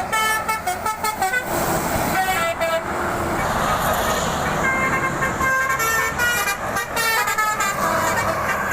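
Bus telolet horn, a basuri-type multi-tone musical air horn, playing quick runs of short stepped notes in a little tune, repeated in several phrases, over steady road and engine noise.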